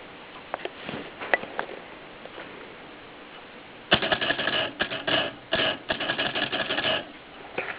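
Contessa Orangina typewriter mechanism clicking: a few scattered clicks, then about three seconds of fast, dense clicking and ratcheting with a short break in the middle.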